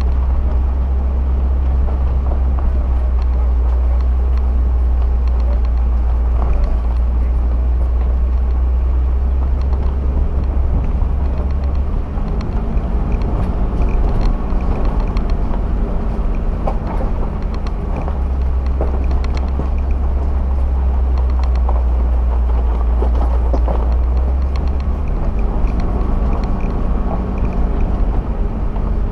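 Off-road vehicle driving along a loose gravel track: a steady low engine drone under tyre noise, with scattered clicks of stones. The engine note changes about twelve seconds in and again near the end.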